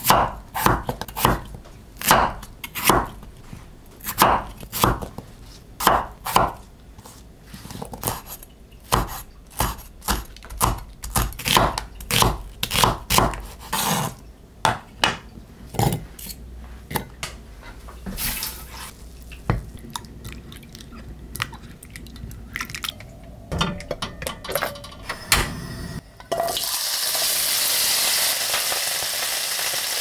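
Chinese cleaver chopping potatoes and vegetables on a camphor-wood cutting board: a long series of irregular knocks. About four seconds before the end it gives way to potatoes frying in a pan, a steady sizzle.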